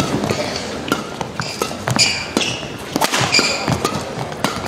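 Badminton doubles rally: rackets striking the shuttlecock in sharp, quick hits, with court shoes squeaking on the floor about two seconds in and again about a second later, in a large echoing hall.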